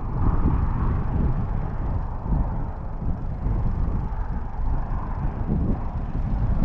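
Wind buffeting the microphone outdoors: an uneven low rumble that gusts up and down, with a faint hiss of moving air above it.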